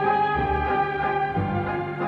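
Orchestral music with sustained notes and a bass line that changes about once a second.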